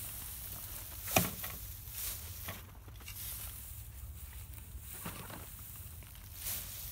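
Pitchfork tearing straw from a round bale and tossing forkfuls into a wheelbarrow: dry rustling and crackling in several short bursts, with a sharp thump about a second in.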